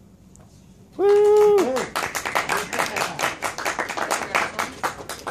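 A loud whoop of a cheer, held for most of a second and then falling in pitch, about a second in, followed by rapid hand clapping close to the microphone: applause at the end of a song.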